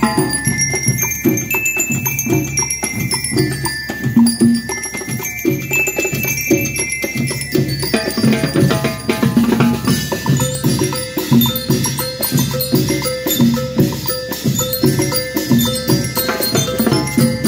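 School rhythmic band playing: metal bell lyres ring out a quick melody of short high notes over a steady beat of drums.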